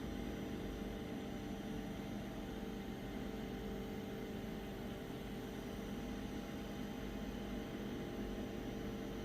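WIPPRO diesel air heater's fan running with a steady hum during a start attempt, with no ticking from the fuel pump: the pump gets signal but has failed, so the heater cannot fire.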